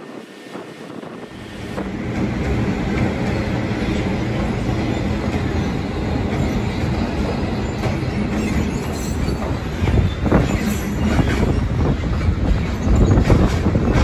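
A freight train rolls past: a heavy, steady rumble of wagons that begins about two seconds in, with wheels clacking over rail joints, growing louder near the end.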